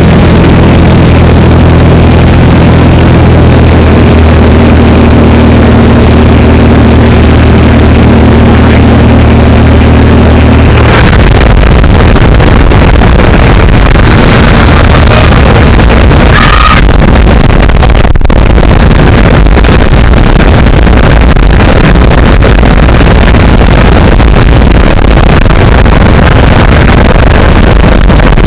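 Small single-engine propeller plane droning loud and distorted inside the cabin, with a steady engine tone. About eleven seconds in, the engine tone drops away and an even, loud rushing noise takes over.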